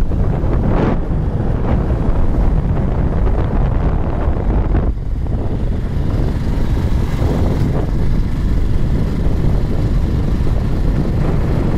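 Wind rushing over the microphone of a moving motorcycle, with the bike's engine and road noise underneath. The noise is loud and steady, with brief swells about a second in and near the five-second mark.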